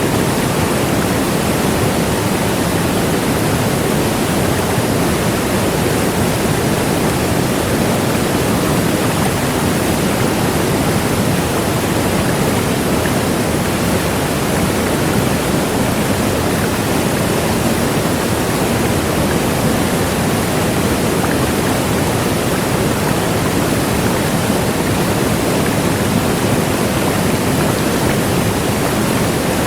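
Large waterfall: a steady, loud rush of falling water, even and unchanging.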